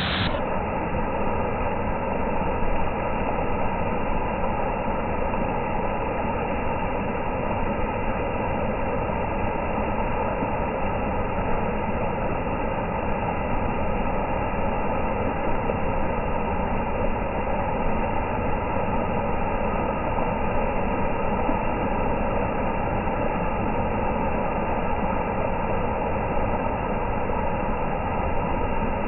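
Water pouring from a garden hose and splashing onto wet pebbled concrete. It is heard as a steady, dull rumbling rush with no breaks: the audio is slowed down along with the slow-motion picture, which lowers its pitch.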